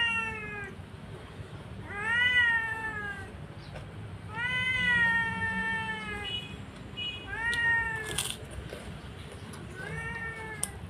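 A cat meowing over and over: about five drawn-out meows, each rising and then falling in pitch, the middle one the longest. A couple of light clicks come near the end.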